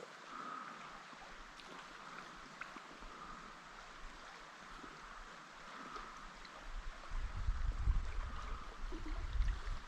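Creek water running steadily, with a faint high pulsing sound repeating about every second and a half. From about seven seconds in, an uneven low rumble rises on top.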